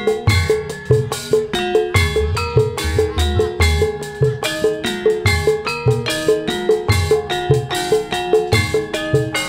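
Javanese gamelan ensemble playing an instrumental tayub passage: bronze kettle gongs and metallophones are struck in an even, quick pulse of about three notes a second, over deep kendang drum strokes.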